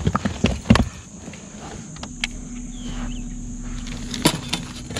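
Knocks and rattles of gear being handled in an aluminium-and-carpet bass boat, with a steady electric motor hum from about two seconds in until just past four seconds, then a few more sharp clicks.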